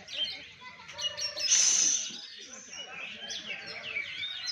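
Oriental magpie-robins (kacer) singing in rapid chirps and whistled glides, with one loud harsh, rasping note about a second and a half in. Faint voices of people underneath.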